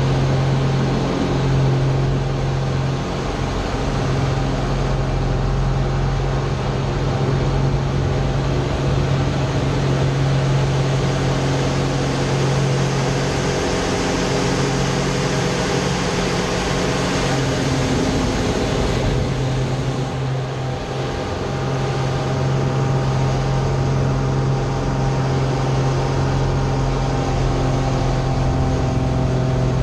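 Slick 540 aerobatic aircraft's six-cylinder Lycoming engine heard from inside the cockpit: a steady, loud drone with a hiss of airflow over it, easing briefly about twenty seconds in before returning to the same note.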